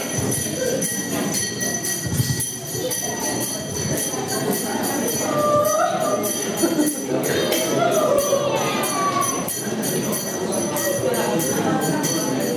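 Small jingle bells shaking steadily in quick, even strokes, over a murmur of voices. One voice rises and falls briefly in the middle.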